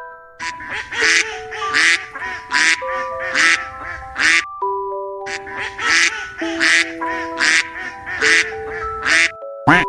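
An animal calling over and over in short, harsh calls, about one or two a second, over light bell-like music.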